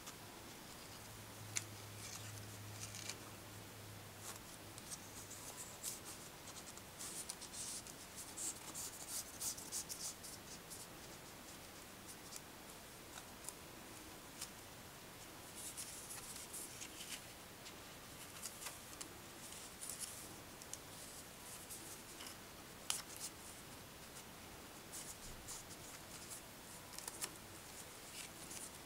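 Faint crisp rustling and scraping of a palm leaf strip being bent, folded and slid through cotton-gloved fingers. It comes in several short spells with a few light clicks. A faint low hum runs for the first few seconds.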